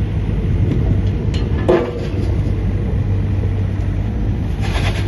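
Diesel engine of a Volvo ECR48C midi excavator running with a steady low hum, with a short squeal-like clank about two seconds in and a brief hiss near the end.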